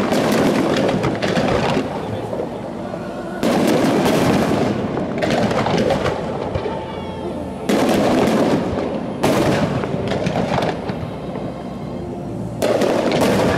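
Fireworks display going off in several loud volleys of rapid bangs and crackling, each a second or two long, with quieter stretches between.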